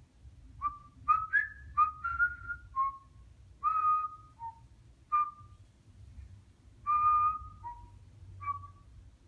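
African grey parrot whistling a broken string of short, clear notes, mostly at one pitch with a few stepping up or down, with two short pauses between runs.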